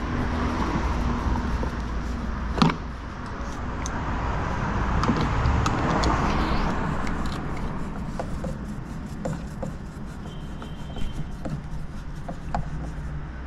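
Screws being driven into a plastic heater-box housing: small clicks and handling knocks, with one sharp knock about two and a half seconds in and more scattered clicks in the second half, over a steady low background rumble.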